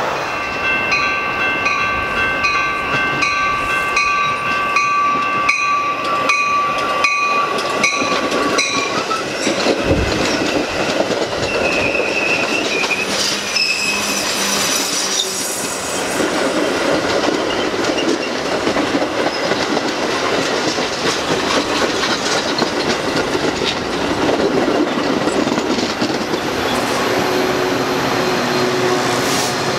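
Metra commuter train of stainless bilevel gallery cars passing close by, wheels rumbling and clacking over the rail joints with some squeal. For the first nine seconds or so a held multi-note horn sounds over a crossing bell clanging in a steady rhythm. Near the end the diesel locomotive pushing at the rear goes by.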